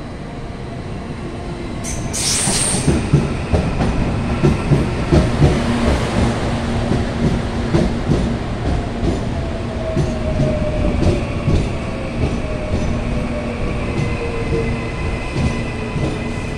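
An electric commuter train running into the platform right past the listener. Its wheels knock rapidly over the rail joints, a motor whine falls slowly in pitch as it slows, and a high thin squeal comes in during the second half.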